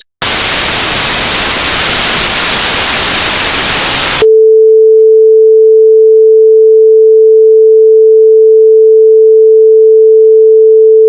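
Loud, hissing static for about four seconds, which cuts off abruptly into a single steady sine tone, a broadcast-style test tone, held unchanged to the end.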